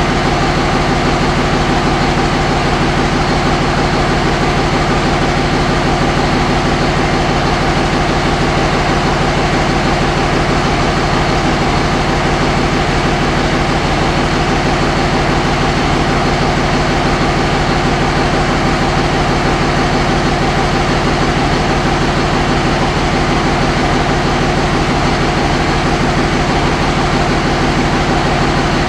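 5.9 Cummins common-rail inline-six diesel idling steadily, not yet up to operating temperature.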